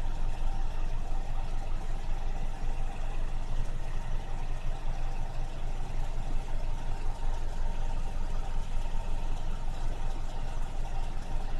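A vehicle engine idling steadily: a constant low hum with a faint, even tone above it.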